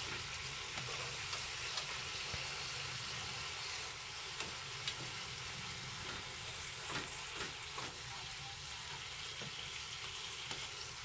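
Sukiyaki ingredients sizzling in a hot pan: a steady frying hiss, with a few light taps of a cooking utensil around the middle.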